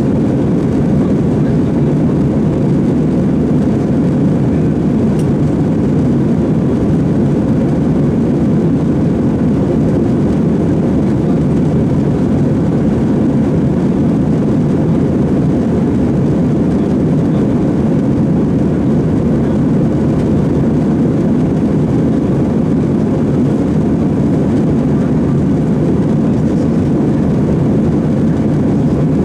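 Steady cabin noise inside a jet airliner in the climb after takeoff: engines and rushing air running at a constant, deep, even level.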